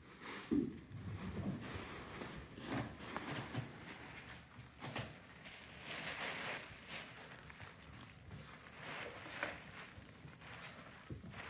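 Faint scattered rustling and crinkling of tissue paper as kittens shift about in a pit of crumpled tissue, densest about six seconds in.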